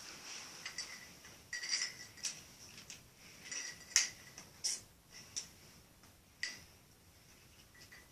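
Small plastic toy pieces clicking and knocking irregularly as toy trucks and toy logs are handled, each click with a brief ring; the sharpest knock comes about four seconds in.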